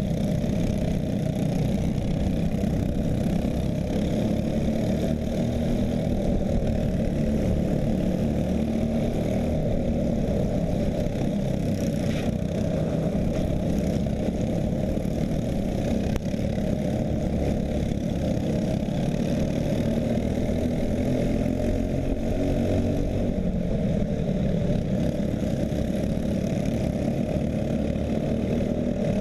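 Racing kart's Briggs & Stratton LO206 engine running steadily on track, heard low and muffled with little high end.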